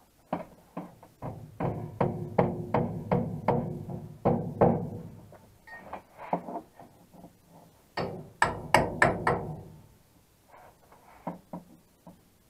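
A hammer tapping on a sheet-metal lip, two to three blows a second with a ringing note for the first few seconds, then a second flurry of sharper blows and a few lighter taps near the end. The lip at the bottom of a truck cab's pass-through opening is being worked so the channel of an accordion pass-through gasket will fit over it.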